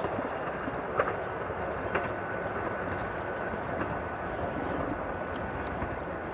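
JR West 415 series electric train approaching from a distance: a steady rumble of its motors and wheels on the rails, with two sharp clicks a second apart early on.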